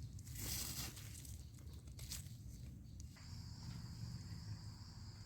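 Two brief rustles or crunches of forest litter, then about three seconds in an insect starts a steady high-pitched trill.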